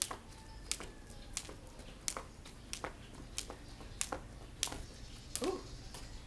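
Jumping rope on concrete: a sharp slap each turn as the rope and feet hit the ground, an even rhythm of about three slaps every two seconds, stopping about five seconds in.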